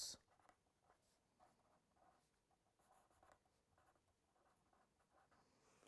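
Very faint scratching of a felt-tip pen writing a word on paper, in short strokes over the first few seconds; otherwise near silence.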